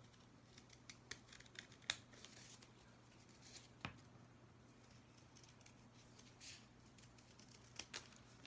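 Scissors snipping through a folded square of paper: a string of faint, unevenly spaced snips and blade clicks with brief paper rustles between them.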